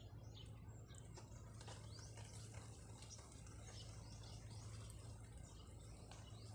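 Faint outdoor ambience of small birds chirping, many short quick calls a second, over a low steady hum.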